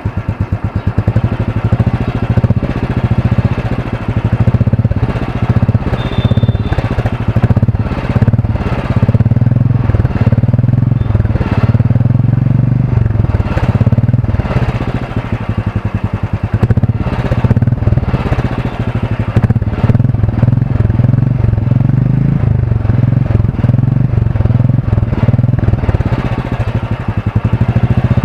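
Royal Enfield 350cc single-cylinder engine running on its stock silencer, a steady rapid thump of exhaust pulses that swells and eases a few times.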